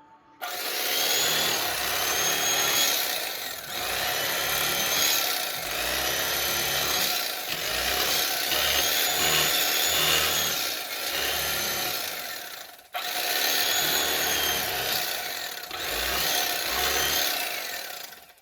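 A small electric power tool, likely an electric fillet knife, running in stretches with a whining pitch that rises and falls. It cuts off sharply once just before the middle of the second half and starts again.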